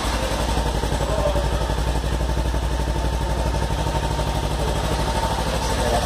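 Kawasaki Versys-X 300's parallel-twin engine idling steadily through its stock exhaust, an even low pulse with no revving.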